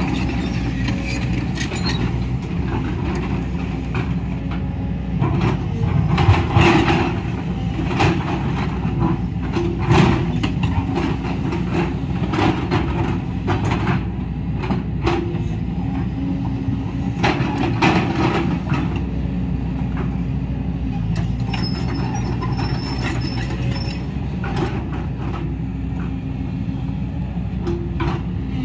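JCB tracked excavator's diesel engine running steadily under hydraulic load while the bucket digs into a rocky bank, with scattered clanks and scrapes of the bucket and stones. The loudest knocks come about six and ten seconds in.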